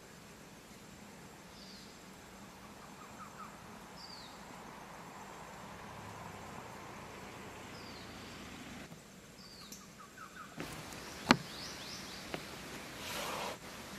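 Forest ambience with a bird repeating a short, high, falling call about every two seconds. A single sharp snap about eleven seconds in is the loudest sound.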